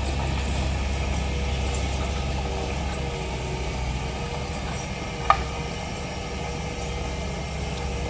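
Komatsu D31P bulldozer's diesel engine running steadily with a deep drone, with a single short sharp click about five seconds in.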